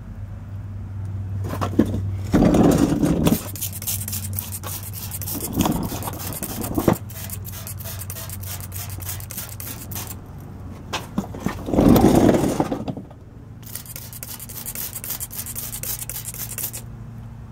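Hand trigger spray bottle squirting repeatedly, many quick squeezes in two long runs, each a short hiss of spray. A louder rough scrape twice, about two and a half seconds and twelve seconds in, and a low steady hum underneath.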